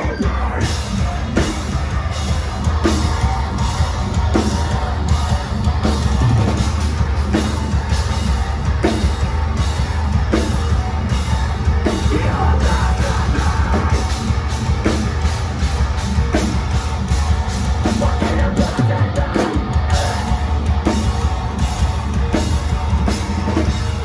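Live metalcore band playing loud, with guitar, bass, pounding drums and vocals through the PA. The low end drops out briefly about 19 seconds in.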